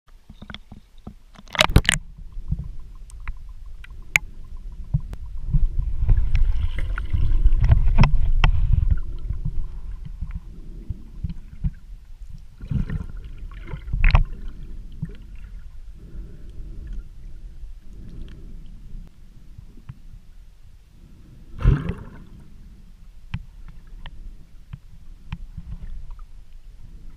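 Muffled water sloshing and splashing, heard with the microphone at and under the water surface, mostly a deep rumbling wash that swells a quarter of the way in. A few sharp knocks stand out, the loudest near the start, about halfway and a little past three-quarters through.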